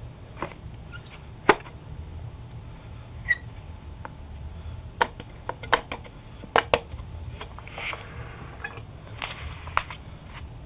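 Handling noises from a vacuum bag being shaken out onto paper: scattered sharp clicks and taps with short rustles of paper, over a low steady hum.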